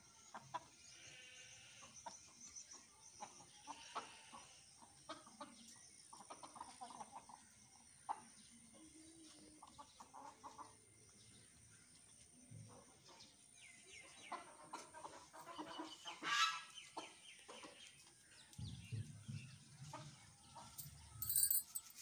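Free-ranging chickens clucking in short, scattered calls, with one louder drawn-out call about three quarters of the way through. A low rumble follows near the end.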